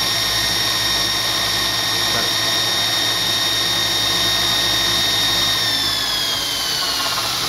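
Kalamazoo 2FS72 2" x 72" belt grinder running free on its electric motor, the belt spinning over the contact wheel with a steady high whine. A little over five seconds in the whine begins to fall in pitch as the machine winds down.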